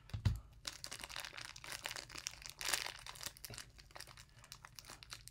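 Crinkling and tearing of a small plastic toy wrapper being opened by hand, with a dull bump just after the start and a louder burst of crinkling a little past the middle.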